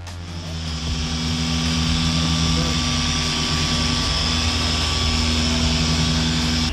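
A machine running steadily: a low drone holding several fixed tones, with a hiss above it, building over the first second.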